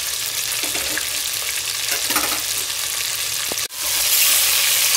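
Chicken pieces and sliced onion frying in hot oil in a pot, a steady sizzle. About three and a half seconds in it breaks off for an instant and comes back louder, with a spoon stirring the pieces.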